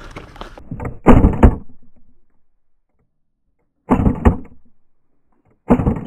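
Close pistol shots from a CQB game pistol, fired in three quick bursts of several sharp cracks each: about a second in, about four seconds in, and near the end.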